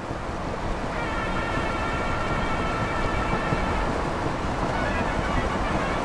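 Steady low rumble of a van on the move, engine and road noise heard from inside the cabin, growing louder over the first couple of seconds.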